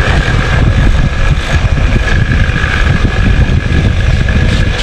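Electric bench motor spinning an abrasive grinding wheel while the rubber edge of a sneaker sole is pressed against it to round it off. It is a steady, loud drone with a thin high whine running through it.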